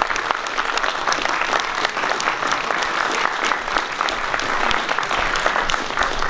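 Concert audience applauding steadily: many hands clapping at once.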